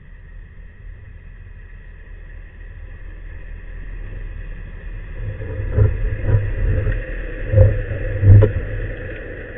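Underwater recording: a low rumble that builds up, broken by several dull knocks, the loudest about two thirds of the way in.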